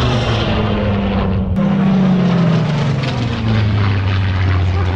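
Single-engine propeller fighter plane's piston engine running loud as it flies past, its note falling steadily in pitch as it passes.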